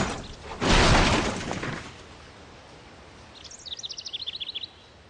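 A car crashing down a steep hillside: a loud, noisy smash about half a second in that dies away over about a second. Near the end a bird gives a quick run of about a dozen high chirps lasting about a second.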